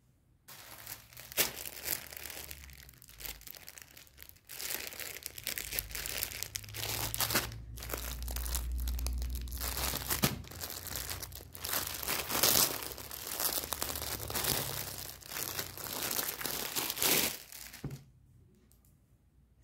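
Clear plastic packaging bag crinkling as it is handled, a run of crackling with a few brief pauses that stops near the end.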